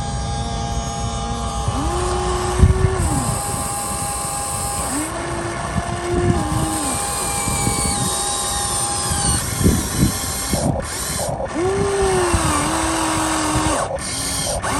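Radio-controlled hydraulic excavator working: its electric motors and pump whine steadily, the pitch rising, holding and dropping several times as it takes and releases load.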